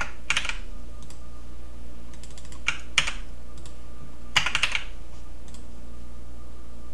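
Computer keyboard keys clicking a few quick presses at a time, about five times, as copy-and-paste shortcuts are keyed.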